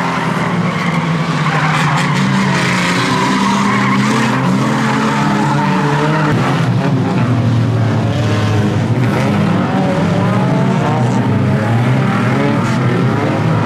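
Several unlimited banger race cars' engines running and revving together, their pitch rising and falling, with tyres skidding as the cars slide through the bends.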